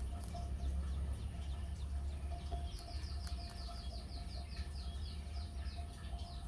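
Low rumble, with a small bird starting a fast trill of short falling chirps, about six a second, a little under three seconds in and keeping it up to the end.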